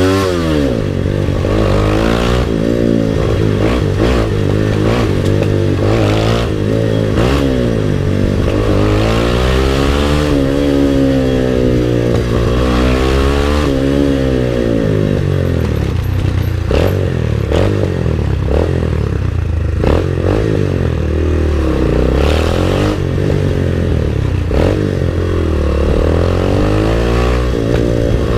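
MotorStar Explore 250 v2 motorcycle engine on its stock exhaust, revved over and over, its note climbing and falling in long sweeps, with many sharp cracks over it throughout.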